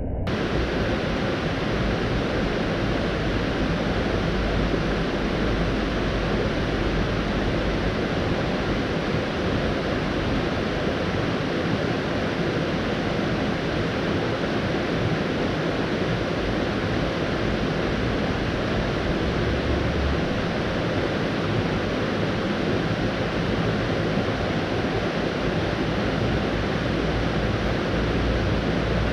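River water rushing over a shallow, rocky riffle: a steady, even roar of flowing water.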